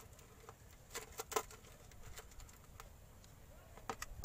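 Faint, scattered light clicks and taps, a small cluster about a second in and a few more near the end, from hand work at a motorcycle engine's oil drain plug as it is undone to drain the oil.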